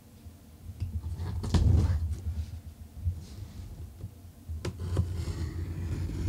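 An X-Acto hobby knife cuts along the clear packing tape on a cardboard shipping box, with scraping and rustling of tape and cardboard. Two sharp clicks come a little past the middle, followed by a rasping scrape.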